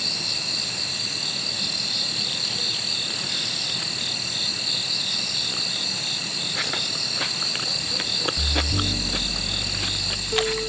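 Crickets chirping steadily in a dense night chorus, with a few light clicks of metal tongs. Low background music comes in near the end.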